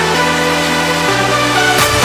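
Electronic dance music: sustained synth chords that change about a second in, with a rising swell near the end.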